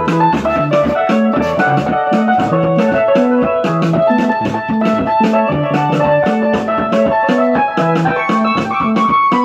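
Electronic keyboard played with both hands: a repeating bass line under quick chords in a steady, even rhythm, a sebene-style dance pattern.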